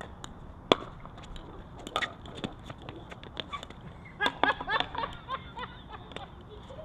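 Pickleball paddles striking the plastic ball in a rally: sharp pocks a second or two apart, the loudest about a second in. About four seconds in comes a brief cluster of short high squeaks and clicks.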